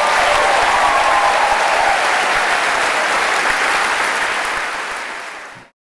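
Audience applauding at the end of a song, with a faint held tone over the first two seconds. The applause fades from about four seconds in and cuts off abruptly just before the end.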